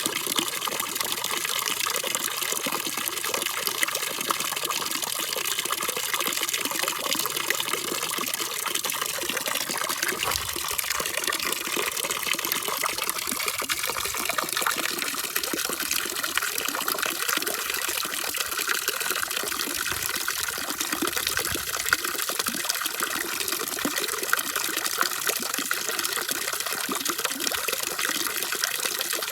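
Steady, unbroken rush of running water, as a continuous sleep-sound ambience.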